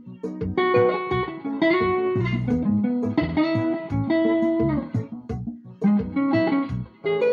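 Guitar playing an improvised solo: a run of plucked single notes, several held for about a second and bent down at the end, over lower notes.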